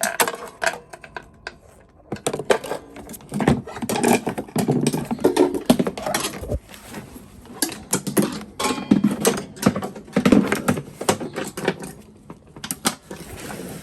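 Irregular clicking, rattling and scraping of a steel blade brake cable and metal mower parts being handled, as the cable is fed along and routed on a Toro TimeMaster walk-behind mower.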